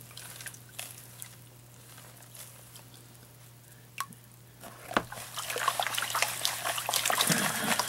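Water in a tub trickling and dripping as a green plastic gold pan is dipped and swirled in it. A sharp tap about four seconds in and a knock a second later, then the sloshing and splashing grow louder toward the end, over a steady low hum.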